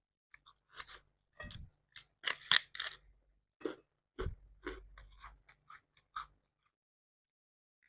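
A person chewing and crunching food close to the microphone, in a run of short, irregular crunches that stop about three-quarters of the way through.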